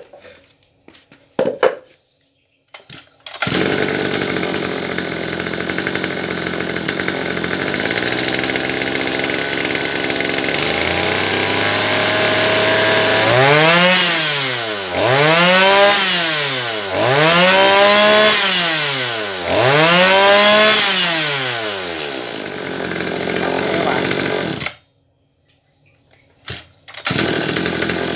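Maruyama MB2620 26cc two-stroke brush cutter engine pull-started: a few short pull sounds, then it catches and idles. It is revved four times in a row, each rev rising and falling in pitch, and then cuts off suddenly. It is pull-started again and running near the end.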